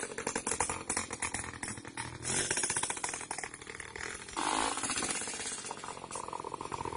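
Two-stroke Vespa engine of a stand-up otopet scooter running with a fast, rattly beat. It fades as the scooter rides off, then gets suddenly louder about four and a half seconds in as it comes back.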